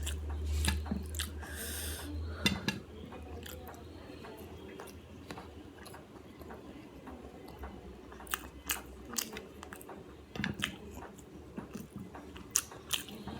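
Close-miked chewing of food, with many small wet mouth clicks and smacks scattered irregularly. A low hum underneath stops about nine seconds in.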